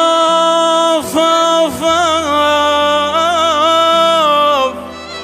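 Male voice singing the opening of an Iraqi song: long held notes with a quivering ornament, over a low steady drone that comes in about two seconds in. The voice fades near the end.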